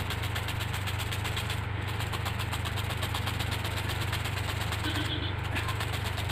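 Steady machine hum with a fast, even ticking, running without a break.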